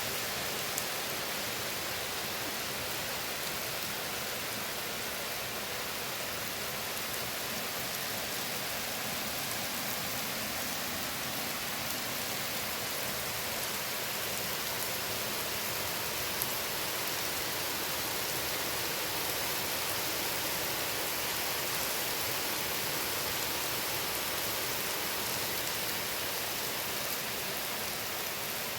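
Steady rain falling in a forest: an even hiss of drops on leaves, with the odd single drop ticking a little louder.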